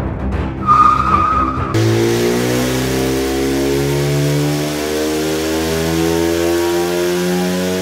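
The 2016 Camaro's turbocharged four-cylinder Ecotec engine running hard on a chassis dyno, cutting in about two seconds in, its pitch climbing slowly as the revs rise under load.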